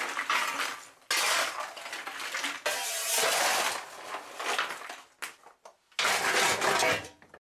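Lumps of coal clattering and scraping against one another as they are stirred by hand with sorbent powder, in several separate bursts. About six seconds in, a last burst of clatter as coal is shovelled into the boiler's feed door.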